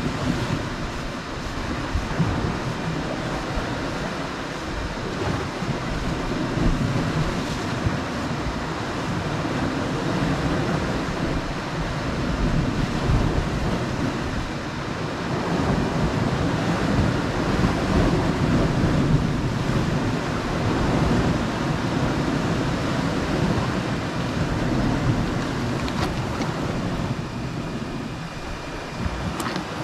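Sea waves washing against a rocky shore in a steady, surging wash, with wind buffeting the microphone.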